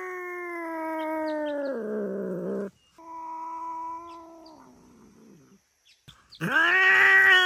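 Domestic cat yowling in a fight standoff with another cat: long, drawn-out threatening yowls, each held on one pitch and then sliding lower. Three yowls, with a short break before the third and loudest one near the end.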